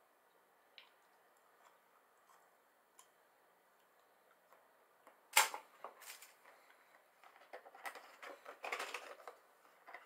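Close-up handling noise from food packaging: a few faint clicks, a sharp crack about five seconds in, then about two seconds of dense crackling and rustling as the packaging is handled.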